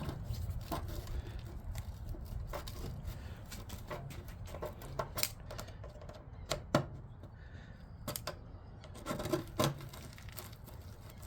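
Flat-blade screwdriver working at a rusted compressor mount on a window air conditioner's base pan: irregular sharp clicks and scrapes of the tool, with a few louder knocks in the second half.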